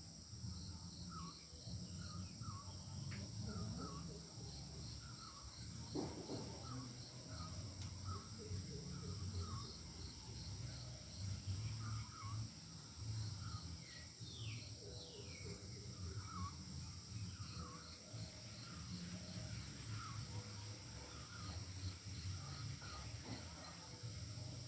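Rural outdoor ambience: a bird repeating short chirps about once a second over a steady high trill of insects, with a low steady rumble underneath. About midway a couple of falling bird calls sound, and there is a single knock about six seconds in.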